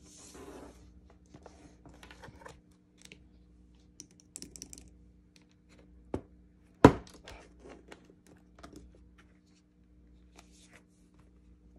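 Handling of an iPad Pro in an Apple Magic Keyboard case: scattered light clicks and taps, with one sharp knock about seven seconds in as the screen is folded shut onto the keyboard.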